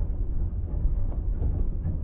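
Steady low rumble with a noisy wash of sound over it, from automatic car wash machinery and water running.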